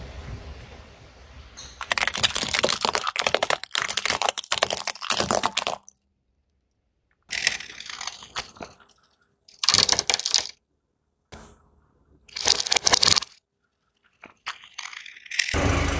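Car tyre rolling over small plastic mini gumball-machine toys, a dense run of cracking and crunching plastic lasting about four seconds. After a short silence come four shorter bursts of noise, and a low rumble starts near the end.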